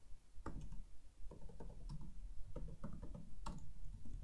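Typing on a computer keyboard: a string of short, irregularly spaced key clicks.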